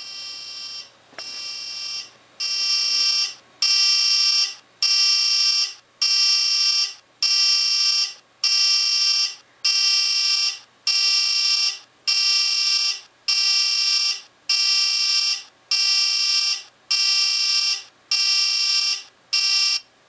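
Cell phone ringing with a ringtone made from a recording of a Dover elevator's loud buzzer, played through the phone's small speaker: a harsh buzz repeated about once every 1.2 seconds, each buzz just under a second long. The first few buzzes are quieter and the ring grows louder over about four seconds, then holds steady until it cuts off near the end.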